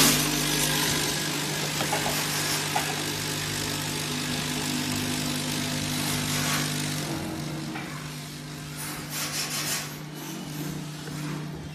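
FF2500 peanut weigh-filling machine running, its vibrating feeder giving a steady hum over the hiss of peanuts moving through it. The hum shifts about seven seconds in, and a few light rattles come near the end.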